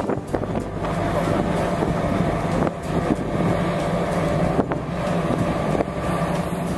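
Steady low engine hum of a ship, heard from on board, with wind buffeting the microphone.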